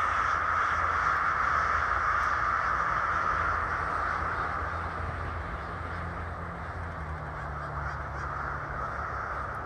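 A large flock of crows cawing all at once, a continuous dense din of overlapping calls that eases off a little after about four seconds, over a low steady rumble.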